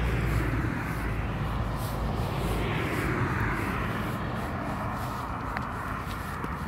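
Street traffic: a car driving past, its engine rumble and tyre noise swelling about three seconds in and then fading away.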